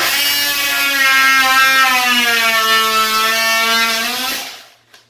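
Oscillating multi-tool running and cutting into the edge of a wooden drawer box: a loud, steady buzz that drops a little in pitch partway through as the blade bites, then stops about four and a half seconds in.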